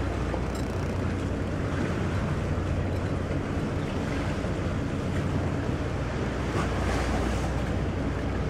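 Water rushing along a moving ship's bow with wind buffeting the microphone, over a steady low hum from the vessel.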